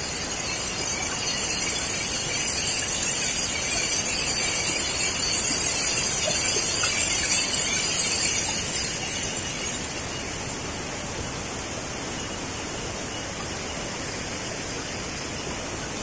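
Steady rushing of a waterfall, with a strong high hiss, louder for the first nine seconds or so and then easing to a lower, even level.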